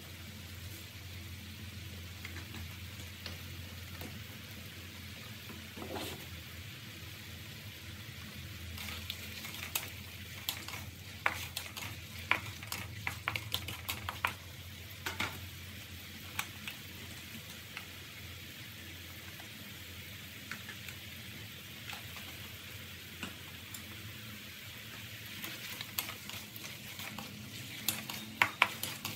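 Beef slices and black mushrooms sizzling in a thin sauce in a metal wok, with a steady hiss. A wooden spatula scrapes and knocks against the pan in two spells of stirring, the first about ten seconds in and the second near the end.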